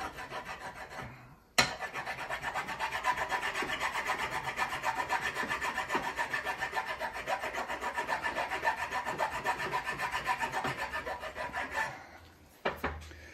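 Hand file rasping across a cast lead ingot, filing a flat spot in quick, even back-and-forth strokes. After a short pause and a sharp tick about a second and a half in, the filing runs steadily, then stops about a second before the end, followed by a couple of light knocks.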